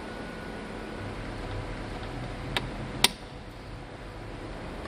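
Two sharp clicks about half a second apart, the second louder, over a steady room hum: plastic wiring-harness connectors snapping into place by hand.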